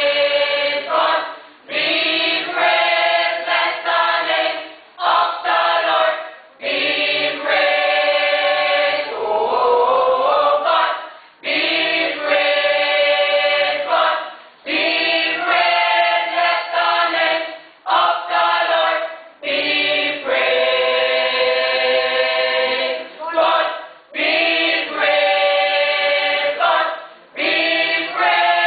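Church choir singing together in phrases of a few seconds each, with brief pauses for breath between them.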